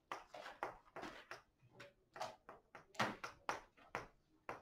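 Chalk on a chalkboard while words are written: a quick, irregular series of taps and short scratchy strokes.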